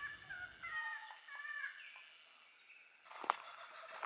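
Bird song: a run of clear whistled notes for about two seconds, fading out. About three seconds in there is a single sharp click, then faint bush ambience with distant bird calls.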